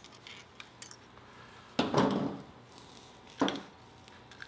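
Light clicks of a metal pick prying small parts out of the centre of a Keihin carburetor's diaphragm slide. Two louder knocks of parts being handled on the bench come about two seconds in and again near three and a half seconds.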